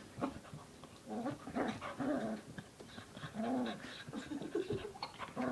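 A puppy and a larger dog playing, with several short growls and whines, and small scuffling clicks between them.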